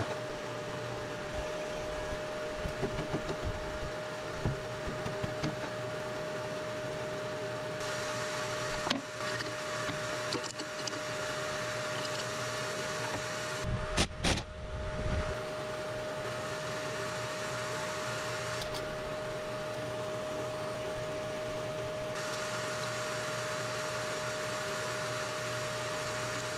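A steady mechanical hum holding one constant mid-pitched tone, with a few short clanks and knocks partway through.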